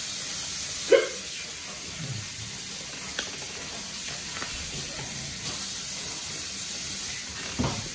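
Steady background hiss under the quiet sounds of a person eating a sandwich wrapped in paper. There is a short vocal sound from the eater about a second in and a small click a few seconds later.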